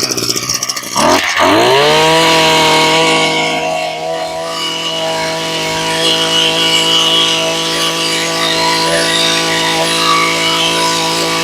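A 26cc two-stroke brush cutter engine starts about a second in, its pitch rising quickly and then holding steady as it runs at a constant speed.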